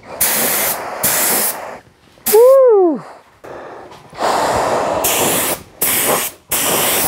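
Gravity-feed paint spray gun on a compressed-air hose spraying Cerakote in five bursts of hiss, trigger on and off, the third burst the longest, with the gun set to a wide fan pattern. About two and a half seconds in, a short, loud pitched sound rises and then slides down.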